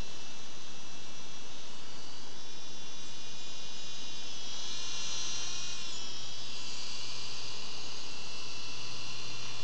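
Happy Line Cyber Sky Black Storm mini toy helicopter in flight: the steady high-pitched whine of its small electric rotor motors, wavering and shifting in pitch about halfway through.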